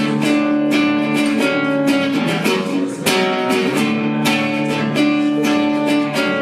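Guitar strumming chords in a steady rhythm, the instrumental opening of a rock song played live.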